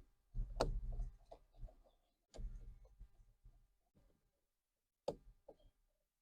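Scattered sharp clicks and light handling knocks as a Phillips screwdriver works on the screws of the steering-wheel cruise control switches, with the loudest click about half a second in and another about five seconds in.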